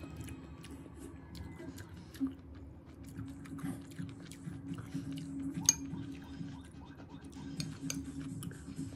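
Eating sounds at a meal: chopsticks and a metal spoon clicking against ceramic bowls and plates, with chewing, and one sharper clink about five and a half seconds in. A low steady hum runs underneath.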